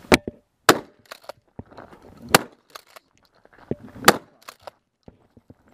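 Remington 870 pump-action shotgun firing a string of shots, loud cracks about one and a half to two seconds apart, with smaller clacks between them as the pump is worked.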